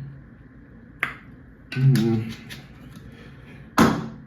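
A sharp click about a second in and a louder knock near the end, with a brief murmured voice between.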